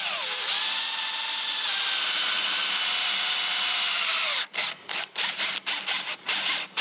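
Power drill (screw gun) boring through sheet metal lubricated with dish soap: a steady whine whose pitch sags slowly as the bit bites in, stopping about four and a half seconds in, then a run of short on-off bursts as the bit breaks through.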